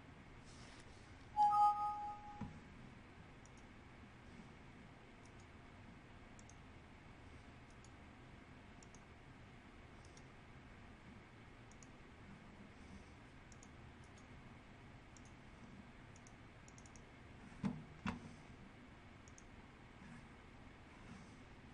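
Faint, scattered clicks of a computer mouse being operated over a low hiss, with a short ringing tone of two pitches about a second and a half in, the loudest thing here, and two sharper knocks close together near the end.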